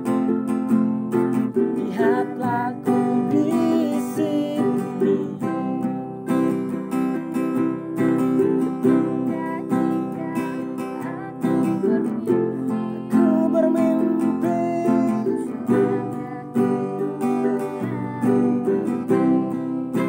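Acoustic guitar and ukulele strummed together, playing a song.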